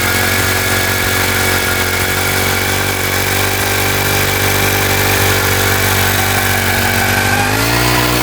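Four-stroke gas ice auger engine running steadily under load as the auger bores through thick lake ice under its own weight. The engine speeds up, rising in pitch, near the end.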